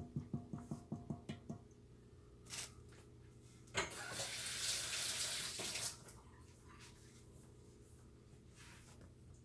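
A hand working chicken wings through wet batter in a stainless steel bowl, making quick rhythmic slaps and knocks, about five a second, that set the bowl ringing; they stop after a second and a half. About four seconds in, a tap runs for about two seconds.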